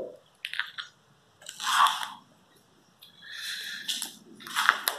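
Slow footsteps crunching and scraping on a gritty, debris-strewn concrete floor, about four steps spaced a second or so apart.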